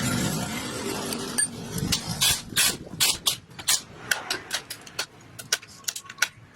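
A steady rushing noise fades over the first second or so. Then comes a run of sharp, irregular clicks and knocks of hard objects, several a second, like metal parts and tools being handled at a workbench.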